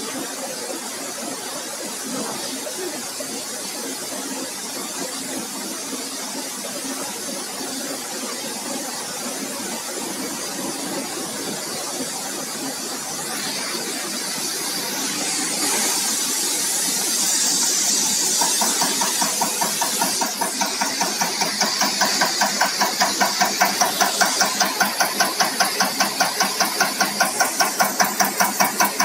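Diesel injector test bench running an electronic unit injector (EUI) test. A steady hum and hiss builds from about halfway through. From about two-thirds in, the injector, driven by the bench's cam, fires in a fast, even train of clicking pulses as the test runs.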